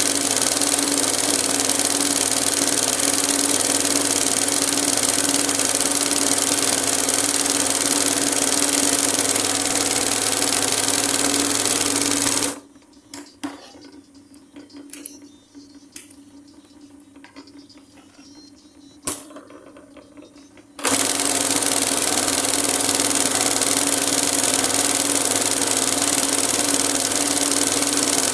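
Industrial embroidery machine stitching at a steady pace with a constant hum. It stops about twelve seconds in, leaving a few light clicks and one sharp click. About eight seconds later it starts up again and runs on.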